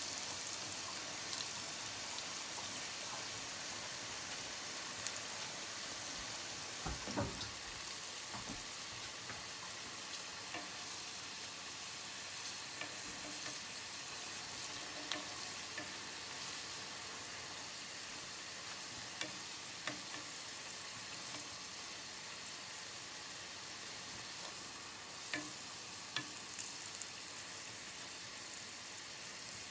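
Dark sauce sizzling steadily in a shallow pan with pieces of green vegetable, stirred with wooden chopsticks that click lightly against the pan now and then. There is one dull knock about seven seconds in.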